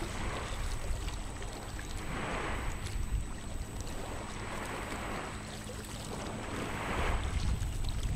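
Ride noise heard from inside a moving vehicle: a steady low rumble with a hiss that swells and fades about every two seconds.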